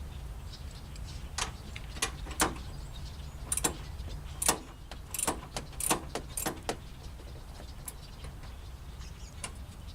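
Hand tools clicking and clinking, about nine short, irregular metallic clicks over several seconds, as a ratchet and socket work the 10 mm bolts on a Honda Civic's headlight mounting. A low, steady rumble runs underneath.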